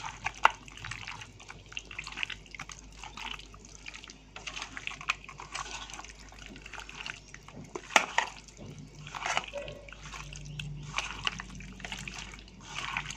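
Wet squelching and squishing as a hand kneads raw chicken in a yogurt-and-spice marinade in a stainless steel bowl, irregular throughout, with a few sharp clicks against the bowl.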